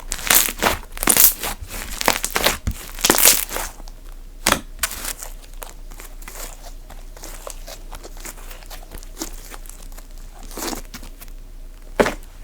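Slime being squeezed and worked by hand, giving a quick run of sticky clicks and pops that thins out after about four seconds to a few single pops.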